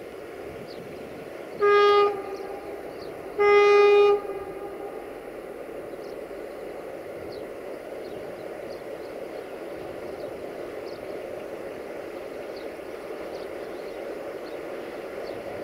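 GFR LDE2100 (060-DA) diesel-electric locomotive sounding its horn twice, a short blast and then a longer one about a second and a half later. Under the horn and afterwards, the steady running of the approaching locomotive and its tanker train.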